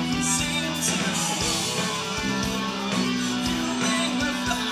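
Live rock band playing with electric guitars, bass and drums. The bass and guitars hold long notes that change every second or two, under steady drum hits.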